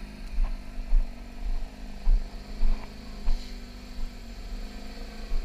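Porsche 911 GT3 (992) naturally aspirated flat-six running at low revs as the covered car creeps forward, with irregular low thumps over it.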